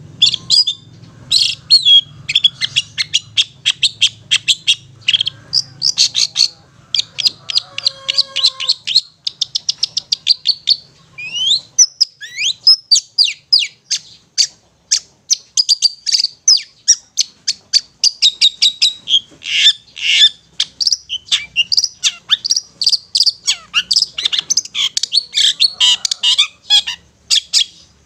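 Long-tailed shrike (cendet) giving its 'ngetet' chatter: fast runs of sharp, high repeated notes. A few rising whistled sweeps come about twelve seconds in.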